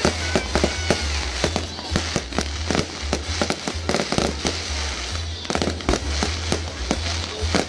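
Aerial fireworks bursting in a rapid, irregular series of sharp bangs and crackling.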